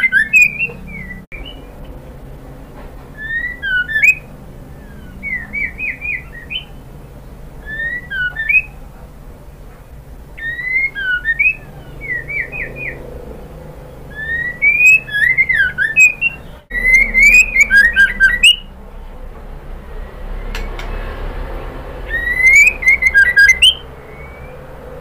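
White-rumped shama calling in short bursts of quick whistled notes that slide up and down, some with sharp clicking notes, a new burst every two to four seconds.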